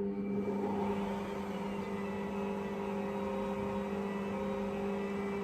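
Electric stand mixer's motor running with a steady hum while it mixes water and yeast, as flour is poured into the turning bowl.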